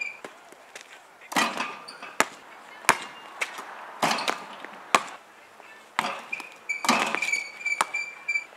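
Basketball being dribbled on an asphalt driveway and dunked on an outdoor hoop: sharp thuds about once a second, with a longer rattle of rim and backboard about four seconds in. A high steady whistle-like tone lasts for a couple of seconds near the end.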